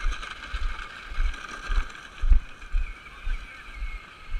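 Outdoor ambience: a steady high-pitched drone, with irregular low thumps on the microphone about twice a second, the strongest a little past two seconds in.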